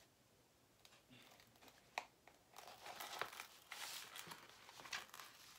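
Protective cover sheet being peeled back from the sticky surface of a diamond painting canvas: a few light ticks at first, then crinkling and rustling from about two and a half seconds in.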